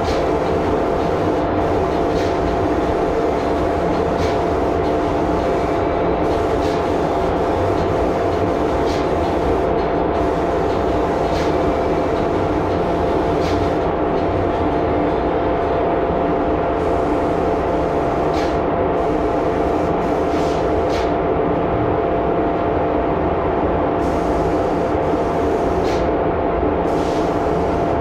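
Spray-finishing equipment running steadily, a loud constant drone with a steady hum tone and a few faint short hisses: the spray booth's exhaust fan and the air pump that feeds the spray gun during conversion varnish spraying.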